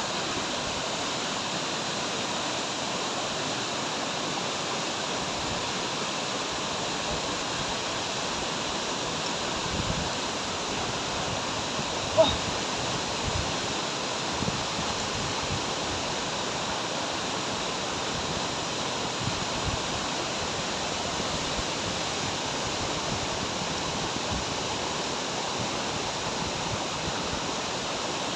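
Waterfall: a steady, even rush of falling water. One brief, sharp, slightly pitched sound stands out about twelve seconds in.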